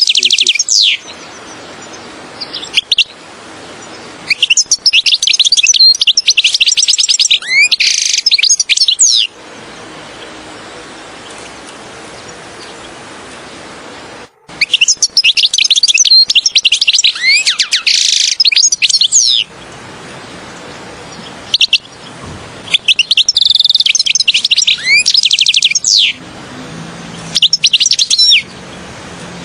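European goldfinch singing: several phrases of fast twittering trills with notes that swoop up and down, the longest about five seconds. The phrases are separated by pauses with a faint steady hiss.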